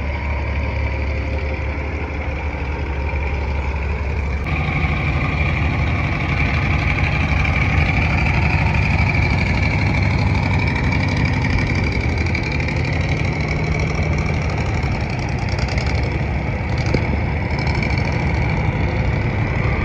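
Diesel truck engines running as heavy trucks drive slowly past: a loaded semi tractor-trailer, then, after an abrupt change about four and a half seconds in, an old conventional truck tractor approaching at low speed.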